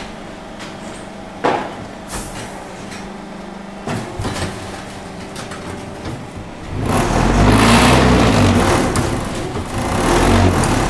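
XH03-20 automatic concrete brick making machine running through its cycle: a steady mechanical hum with a couple of sharp knocks, then about seven seconds in a loud shaking, rumbling stretch of several seconds that swells twice.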